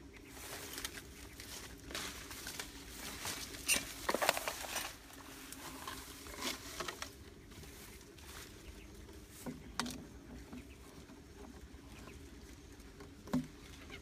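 Irregular rustling and crackling with a few soft knocks from a plastic pipe-and-bottle trap being handled and carried through grass and leaves, loudest about four seconds in, over a faint steady low hum.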